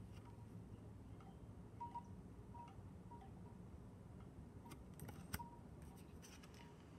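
Near silence with faint room tone, broken by a few faint short ringing tones and a few soft clicks about five seconds in as tarot cards are handled.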